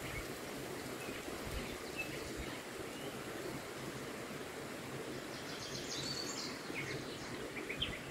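Outdoor nature ambience: a steady background hiss with a few short bird chirps a little past the middle.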